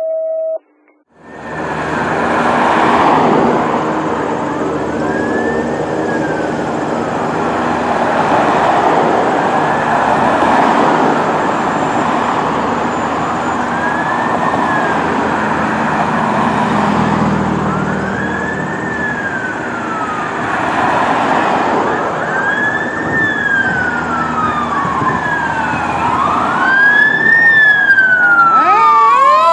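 Fire truck sirens on an emergency response, starting about a second in: an electronic siren wailing up and down about once every four seconds over a dense, noisy din, getting louder as the apparatus approaches. Near the end the wail is clearest and switches to a rapid yelp.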